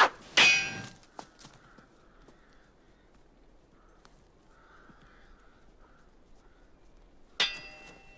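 Steel sword blades clashing: two ringing clangs in quick succession at the start, the second the loudest, then a single ringing clash about seven seconds later.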